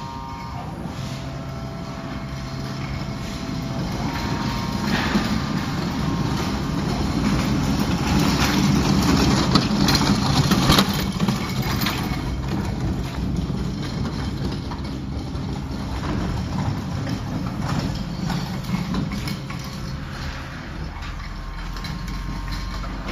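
Machinery running steadily: a continuous mechanical hum with a noisy rush that grows louder around the middle and then settles.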